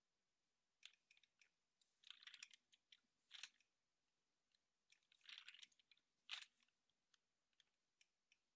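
Faint clicking of a computer mouse: scattered single clicks and a few quick runs of clicks.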